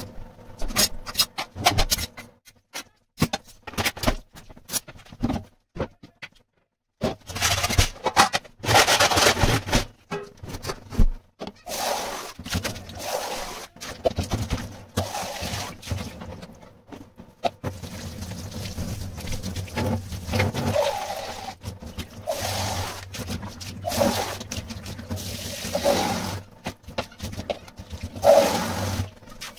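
Cleaning at a stainless steel kitchen sink: scattered knocks and clatters against the steel at first, then from about a quarter of the way in, steady running water with scrubbing and scraping.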